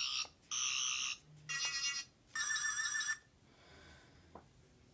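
Toy Fourth Doctor sonic screwdriver playing an electronic sound effect through its small speaker: four short buzzy electronic bursts in about three seconds, the last one with a warbling tone, then it stops.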